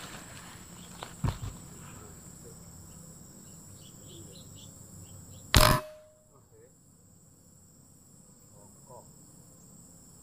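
A single PCP air rifle shot about five and a half seconds in: a sharp crack followed by a brief ringing tone. Insects hum steadily underneath, with a small knock about a second in.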